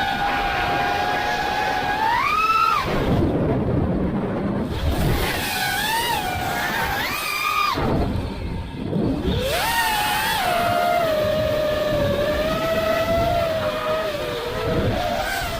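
FPV racing quadcopter's motors and propellers whining as it flies, the pitch swelling with bursts of throttle about two and a half seconds in and again near ten seconds, and dropping away briefly twice when the throttle is cut.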